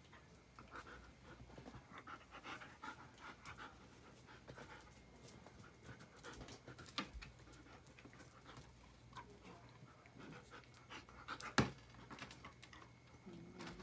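A dog panting with quick, rhythmic breaths, with a couple of sharp knocks, the louder one near the end.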